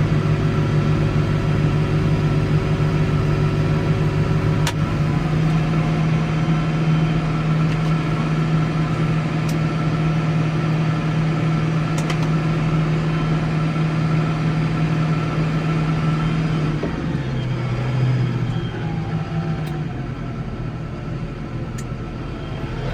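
Case 115U tractor engine running steadily under work. Its note shifts about five seconds in, then drops and eases off around seventeen seconds in.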